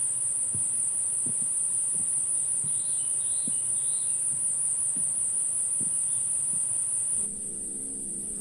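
Steady, high-pitched chorus of insects in the mountain forest, with soft footsteps thudding at an even walking pace beneath it. Near the end the chorus drops in level and a low steady hum comes in.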